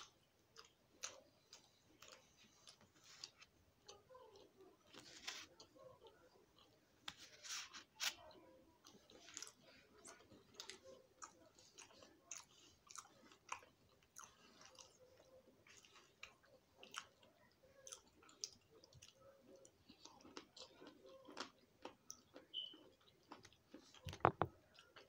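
Close-up chewing and eating sounds: irregular wet mouth clicks and smacks as food is bitten and chewed, with a brief louder sound near the end.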